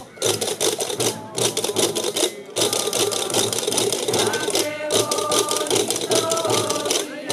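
Gomeran baile del tambor: wooden-hooped drums and chácaras (large castanets) beating a fast, even rattling rhythm, with a voice singing held notes over it and brief breaks between phrases.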